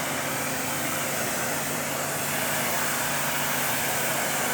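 Steady machine hum with a constant hiss, running evenly throughout.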